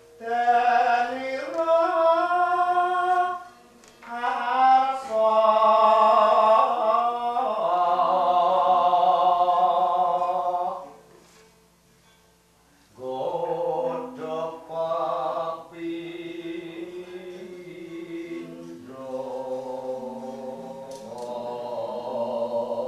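Unaccompanied solo singing in Javanese gamelan vocal style, with long held, wavering notes sung in free-rhythm phrases. The voice breaks off twice: briefly about three and a half seconds in, and for a couple of seconds around the middle. It then resumes more softly.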